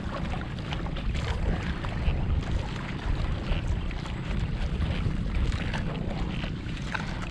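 Wind buffeting an action camera's microphone on open water: a steady low rumble with a haze of water noise and scattered small ticks.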